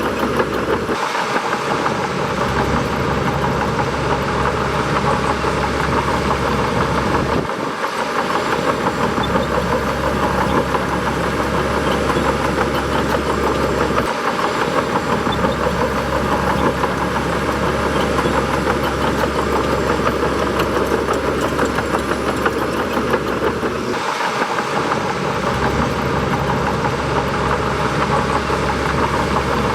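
Bulldozer's diesel engine running steadily under work, with a deep rumble that briefly drops out a few times.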